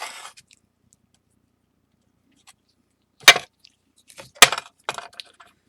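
A sharp click a little past halfway, then a quick run of smaller clicks and scrapes of hard objects handled on a work surface.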